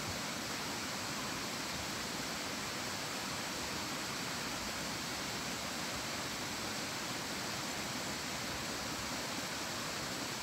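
Steady rushing of a stream, an even noise that holds unchanged throughout.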